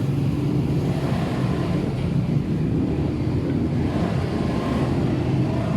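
Small engine running steadily, a continuous low hum.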